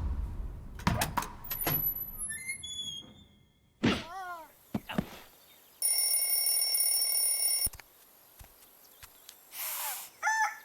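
A string of dubbed-in sound effects: a few knocks, a run of short high falling tones, a squawk, then a steady ringing tone for nearly two seconds that cuts off suddenly, followed by a brief whoosh and more squawking near the end.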